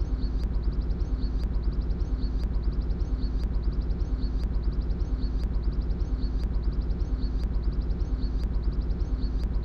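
Diesel train heard from the driver's cab: a steady low rumble with a faint pattern repeating about once a second.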